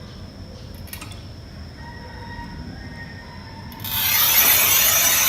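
Manual tile cutter's scoring wheel drawn across a glazed floor tile: quiet at first, then a loud, steady gritty scraping starting near the end.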